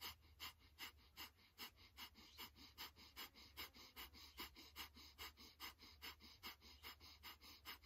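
A woman's rapid, rhythmic breathwork breathing: a steady train of short, sharp, faint breaths, several a second, kept at an even pace.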